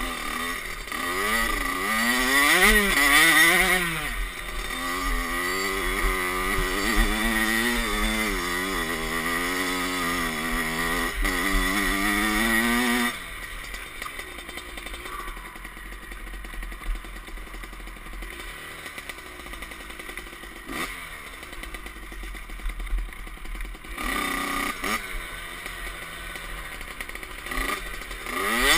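Kawasaki KX65's small two-stroke single, fitted with a Pro Circuit expansion pipe and silencer, revving up and down as the dirt bike is ridden. About thirteen seconds in it drops suddenly to a much quieter, steady idle, then picks up again near the end.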